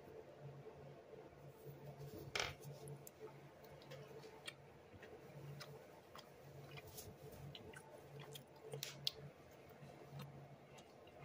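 Near silence: faint room tone with a low hum that comes and goes, and scattered soft clicks, one sharper click about two seconds in.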